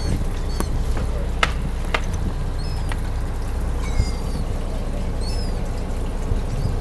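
Boat engine idling with a steady low hum. Short high chirps and a few sharp clicks are scattered over it.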